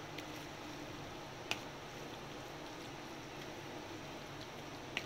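A metal spoon stirring shredded cabbage through thick pakora batter in a plastic bowl: faint wet squishing, with two sharp clicks, about a second and a half in and near the end.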